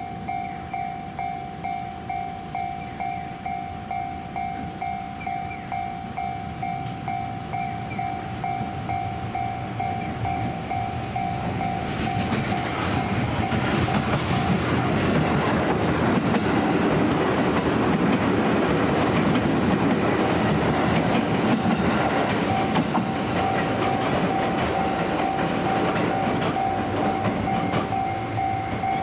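A JR Nara Line train runs past. Its rumble builds from about ten seconds in, is loudest in the middle and eases near the end. Behind it an electronic warning bell beats steadily about twice a second, the train briefly drowning it out.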